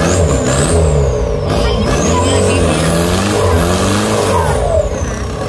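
Off-road pickup's engine revving hard again and again, its pitch rising and falling in swells about once a second as the truck strains to climb a muddy dirt mound.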